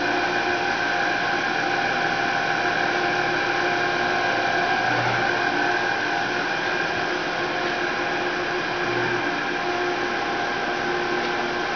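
Large industrial roll-handling machine for turf and carpet backing running: a steady motor hum and whine with several held tones over a noisy bed, and a soft low throb every few seconds.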